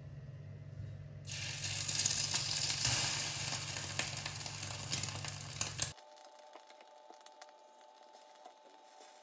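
Egg-coated kimbap slices sizzling as they fry in a pan, the sizzle rising about a second in and cutting off abruptly about six seconds in. A much fainter stretch follows, with a thin steady whine and small clicks.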